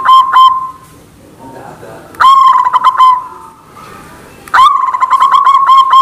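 White zebra dove (perkutut) cooing in fast runs of short notes, about six a second. The first run stops about half a second in, a short run comes around two seconds in, and the cooing starts again at about four and a half seconds.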